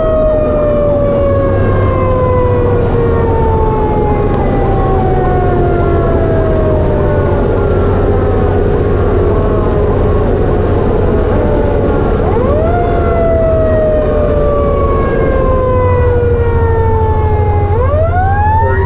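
Fire truck's siren heard from inside the cab, its pitch falling slowly and then swept back up quickly twice, about twelve seconds in and again near the end. The truck's engine drones steadily underneath.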